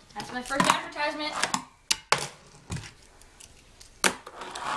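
A voice talking indistinctly for about a second and a half, followed by a few sharp knocks and clicks in a small room.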